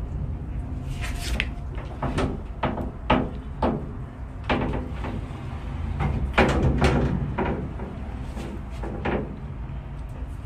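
Fenelon Place Elevator funicular car arriving at the bottom of its run: irregular clunks, knocks and rattles, some sharp, over a steady low rumble.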